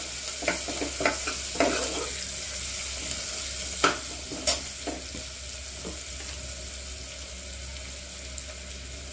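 Sliced onions and whole spices sizzling in hot oil in an aluminium pressure cooker, with a steel ladle stirring and knocking against the pot several times in the first half, then only the steady sizzle.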